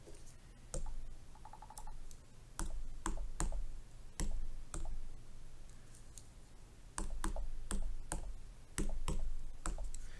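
Stylus tapping on a tablet's glass touchscreen while typing on the on-screen keyboard: a dozen or more sharp, irregular taps.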